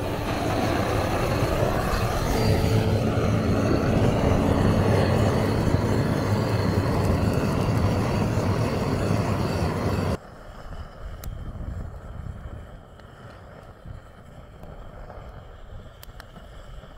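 Gas torch flame held to firewood, blowing with a loud, steady rushing noise that cuts off abruptly about ten seconds in. A quieter low rush with a few faint ticks follows.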